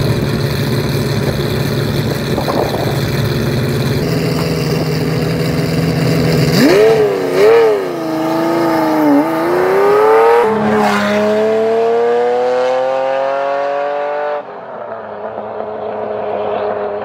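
Ferrari Testarossa's flat-twelve engine running steadily, then pulling away: the revs rise and dip, drop at a gear change about ten seconds in, then climb again. Near the end it cuts suddenly to a quieter, steady road sound.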